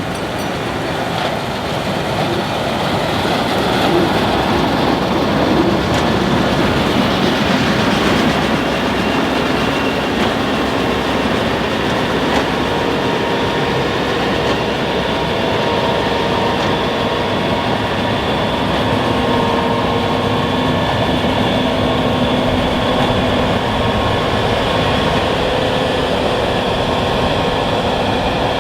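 Case IH 6160 Axial-Flow combine harvesting wheat under load: a dense, steady mechanical rumble carrying several steady whining tones. It swells over the first few seconds, then holds even.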